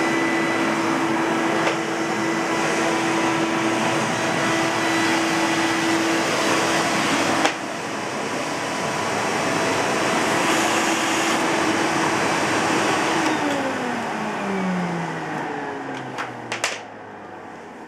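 Philips HR6242 canister vacuum cleaner's 700 W motor running with a steady whine, a sharp click about halfway through briefly dropping the level. Near the end it is switched off and the motor winds down, its pitch falling, with a few clicks.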